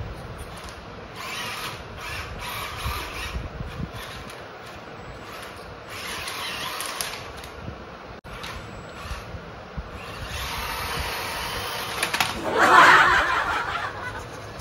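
Small electric motors of toy RC cars whirring in stop-start spells as the cars crawl over ramps of interlocking plastic blocks, with some plastic rattling; the loudest, wavering spell comes about twelve seconds in.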